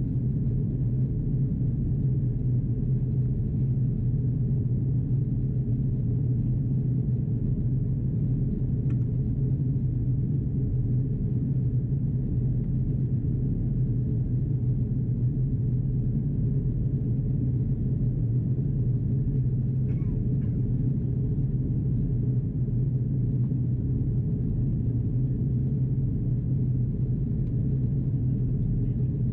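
Steady low drone inside the cabin of an Airbus A330-300 in descent: airflow over the fuselage and its Rolls-Royce Trent 700 engines running, even and unbroken, with a strong low hum.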